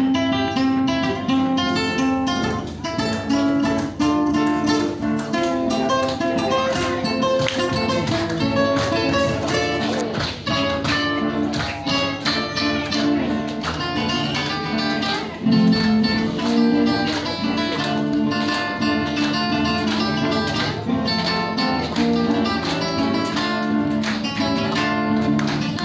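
Acoustic guitars playing a Latin-style praise song live, plucked and strummed, beginning abruptly.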